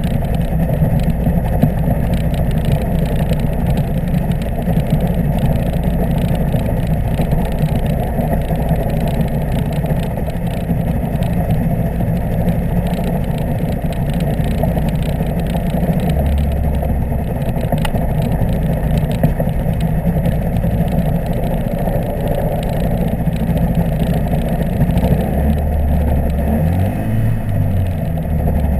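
Microlight trike's pusher engine and propeller running steadily at low power while taxiing. The engine note shifts slightly a few times, most noticeably near the end.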